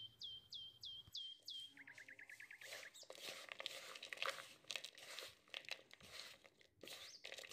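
Chopped roasted nuts and white chocolate chunks being tossed by hand in flour in a plastic bowl: faint, dry, irregular crunching and rustling from about three seconds in. Before that, a bird chirps a quick run of falling notes, then a faster trill.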